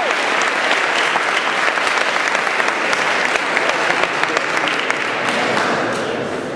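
An audience applauding, a dense patter of clapping hands that begins to die down near the end.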